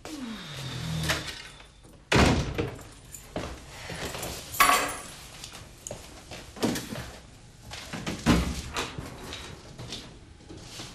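A wooden apartment door creaks open with a short falling squeak, then shuts with a loud thud about two seconds in. Near the middle comes a jingle like keys, followed by a few lighter knocks and bumps.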